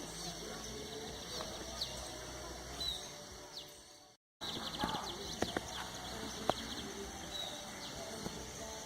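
Birds chirping with short repeated calls over a steady high buzz. The sound fades and drops out briefly about four seconds in, then returns with a few clicks.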